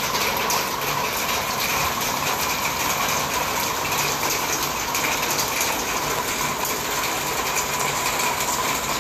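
Heavy rain pouring steadily, a dense even hiss of falling water, with a steady machine hum underneath.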